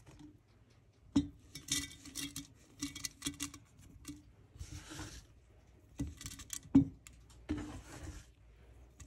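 Strips of lemon zest dropped by hand into an empty glass jar: soft taps and rustles against the glass, with a sharper knock about two-thirds in.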